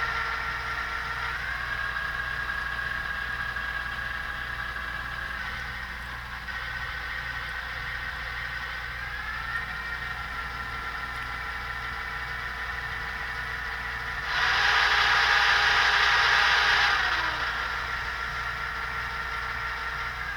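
HO scale GP9 model's Loksound sound decoder playing a simulated EMD 567 diesel engine through its small speaker: a steady, even engine beat with a high whine that steps up and down in pitch a few times. About 14 seconds in, a louder, noisier sound lasts about three seconds.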